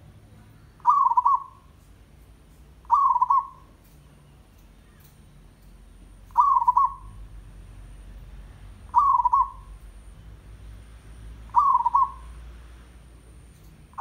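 Zebra dove (perkutut, merbok) giving its short trilled coo about five times, each about half a second long and two to three seconds apart. This is the bird's 'tandang' challenge call.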